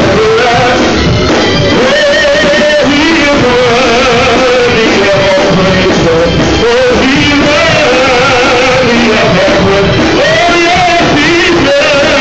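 Man singing a praise-and-worship song into a microphone in long, wavering held notes, backed by a live church band.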